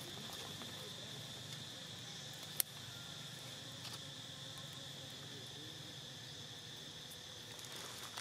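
Steady high-pitched insect chorus, an unbroken drone, with a single sharp click about two and a half seconds in.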